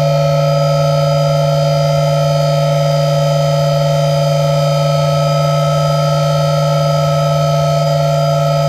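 Machining-center spindle running at a constant speed, a steady whine of several held tones.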